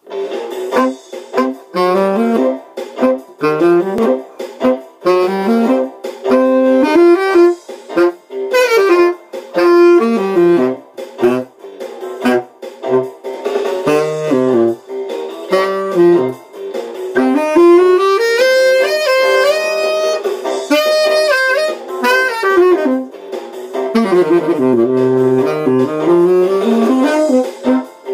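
Rosedale tenor saxophone played solo: a jazz melody in phrases with short breaths between them, dipping to low notes and, past the middle, a run of quick notes climbing higher.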